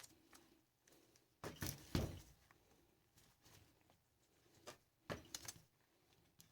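Faint knocks and clinks of starter-motor parts being handled during disassembly: a few taps about one and a half to two seconds in, and a few more about five seconds in.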